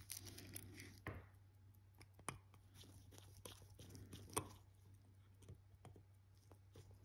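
Near silence with a few faint, sharp clicks from a small screwdriver working on a watch movement, fitting the screw that secures the automatic's oscillating weight.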